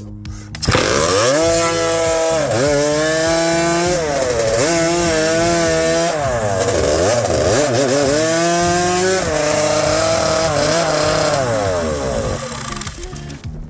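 Hot saw (racing chainsaw) with a Yamaha YZ250 two-stroke engine running loudly and revving up and down several times. It starts abruptly about a second in and dies away near the end.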